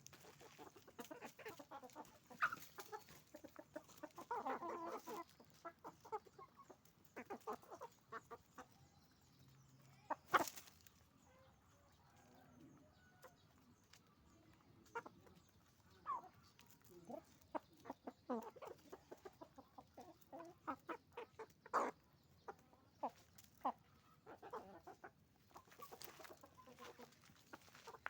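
Chickens clucking and calling, many short calls overlapping, with a burst of louder cackling about four seconds in and a single sharp knock about ten seconds in.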